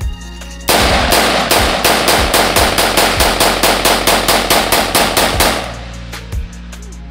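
AR-15 rifle in 5.56 firing a fast string of shots, several a second, for about five seconds. The shots begin under a second in and stop near the end.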